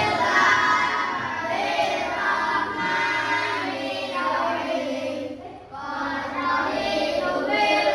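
A group of children singing together, with a short break about five and a half seconds in before the singing resumes.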